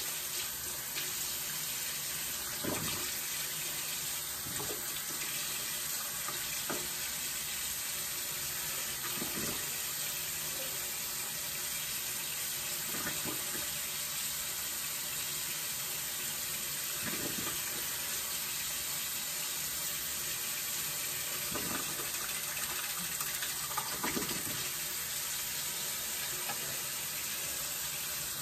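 Bathroom sink tap running steadily, with a few faint short sounds every few seconds.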